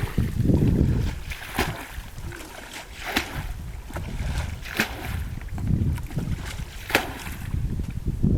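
Water sloshing and splashing, with a sharp splash or slap about every second and a half, over a low rumble of wind on the microphone.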